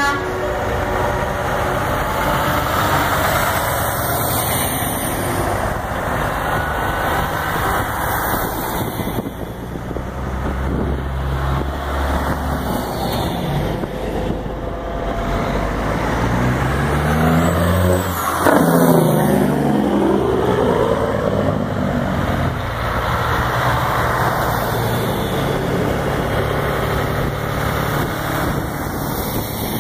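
Diesel semi-truck tractors driving past one after another at low speed. One truck passes close about two-thirds of the way through, and the sound is loudest there.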